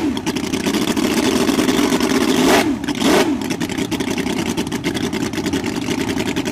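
Miniature Ardun-headed Ford flathead V8 model engine running fast with a rapid, even firing note; its revs swing up and down at the start and again about three seconds in.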